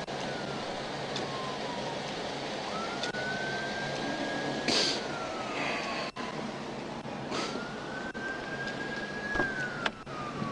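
Police siren in a slow wail, its single tone rising, holding, then sliding down again about every four and a half seconds, over steady roadside noise. Two short hissing bursts come near the middle.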